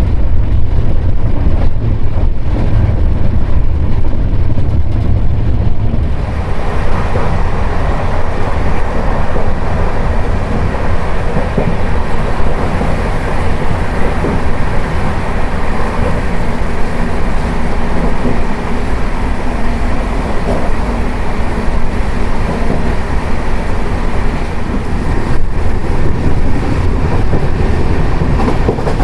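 Jan Shatabdi Express passenger train running along the line, heard aboard: a steady, loud rumble of the coach on the rails, which turns brighter and hissier about six seconds in.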